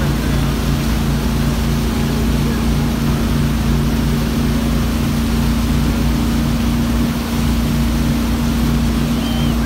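Motorboat engine running steadily while towing wake surfers, a low hum with an even throb about twice a second, over a rush of churning water.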